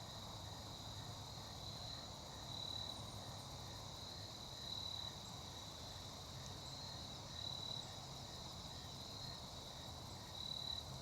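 Crickets trilling steadily: a faint, continuous high-pitched chirring that swells slightly every couple of seconds.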